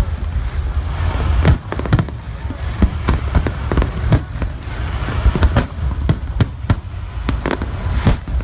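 Fireworks display with aerial shells bursting in quick, irregular succession, about two sharp bangs a second over a continuous low rumble.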